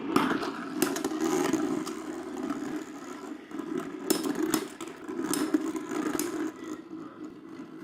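Two Beyblade X spinning tops whirring and grinding against a plastic stadium floor in a steady scraping drone, with several sharp clacks as they collide.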